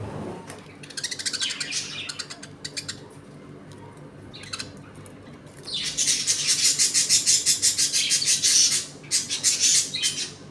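A colony of budgerigars chattering in rapid high bursts, the loudest and densest stretch beginning a little past halfway and lasting about three seconds, followed by a few shorter bursts.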